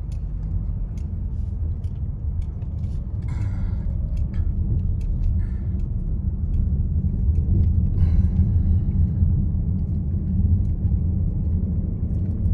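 Car driving, heard from inside the cabin: a steady low rumble of engine and tyres on a concrete road, growing a little louder about halfway through.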